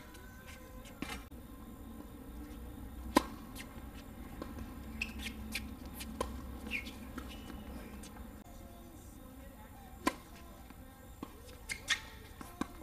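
Tennis balls struck by rackets in a doubles rally on a hard court: sharp pops, the loudest about three seconds in and a few more near the end. Short squeaks of shoes on the court come in between.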